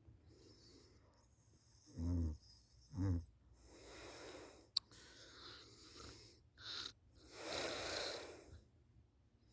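A sleeping person snoring: two short, low-pitched snores about a second apart around two seconds in, then several noisy breaths, the longest near the end, with a sharp click between them.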